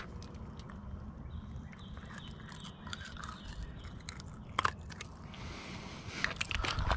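Close handling sounds as a hooked fish is worked free with pliers on a gravel bank: scattered sharp clicks and scrapes, most of them near the end, over a steady low rumble.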